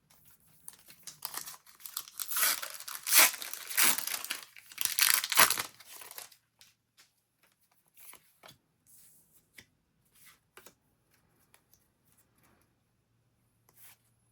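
A crinkly foil booster pack of Disney Lorcana trading cards torn open, in several loud rips and crackles over a few seconds, followed by faint rustles and small clicks of the cards being handled.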